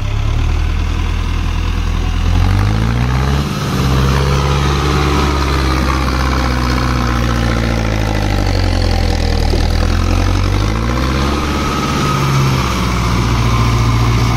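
Farm tractor's diesel engine running hard under load as it hauls a rotavator up out of a flooded field onto a raised road. The engine speed climbs about two seconds in and falls and rises again a few times as it labours.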